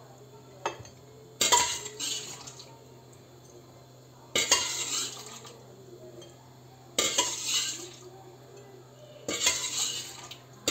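Metal spoon scraping and clinking inside a stainless steel pressure cooker pot, about four times a couple of seconds apart, as boiled bone-in meat is scooped out.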